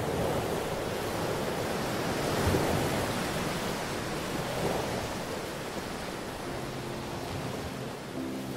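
Ocean surf: an even, wide hiss of waves washing in that swells about three times, with faint held notes of soft music coming in toward the end.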